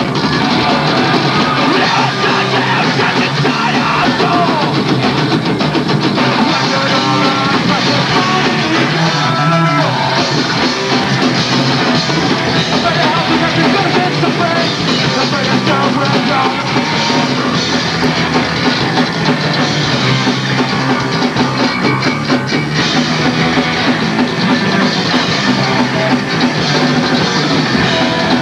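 Live punk rock band playing loudly and without a break: drum kit, electric guitars and a singer.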